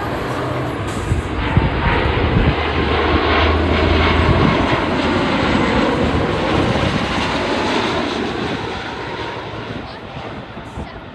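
Jet airliner engines, loud as the plane passes, swelling to their strongest around the middle and fading toward the end.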